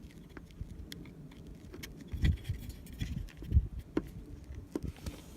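Handling noise from a small car dash speaker and its loose plastic grille being moved by hand: scattered light clicks and taps, with a couple of soft bumps about two and three and a half seconds in.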